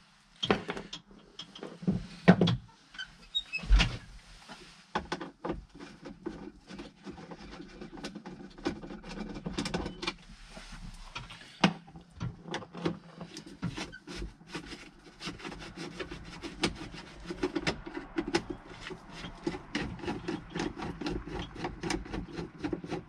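Screwdriver working the screws out of a backhoe pilot control pedestal's cover, a long run of small clicks, scrapes and knocks with a few louder knocks early on. Squeaks from the cab's fittings, where everything squeaks, come in among them.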